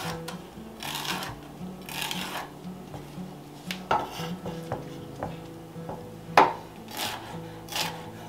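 A chef's knife cutting a jalapeño pepper on a wooden cutting board: a few drawn-out scrapes, then sharp knocks of the blade against the board, the loudest about six seconds in. Quiet background music plays underneath.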